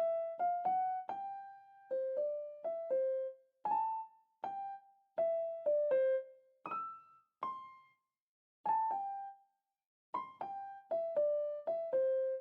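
Background music: a slow, simple melody of single electric-piano notes played one at a time, each ringing and fading, with two brief silent pauses between phrases.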